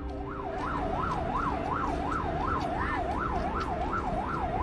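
Emergency vehicle siren wailing in a fast up-and-down sweep, about two and a half cycles a second, over a low steady rumble.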